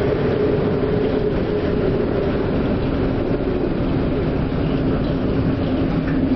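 Steady, even rumble with a low hum from aboard a container ship in heavy seas: the ship's engine and hull vibration mixed with wind and breaking spray, with no single crash standing out.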